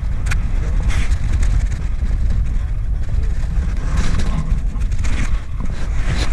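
Strong wind buffeting an action camera's microphone, a constant low rumble, with scattered rustles and knocks about a second in and again around four to five seconds.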